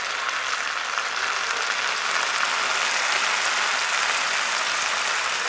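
Ground spice paste and fried onions sizzling steadily in hot oil in a nonstick frying pan, the masala being sautéed down after a splash of water.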